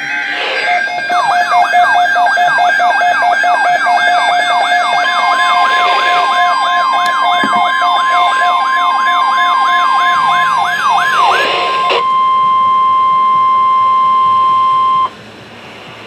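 Weather alert radios sounding their alarms at once: a siren-like tone sweeping up over and over, about two and a half times a second, over a pulsing beep, which stop about 11 seconds in. Under them the NOAA Weather Radio 1050 Hz warning alert tone, one steady pitch that starts about 5 seconds in and cuts off suddenly near the end, signalling an incoming emergency alert.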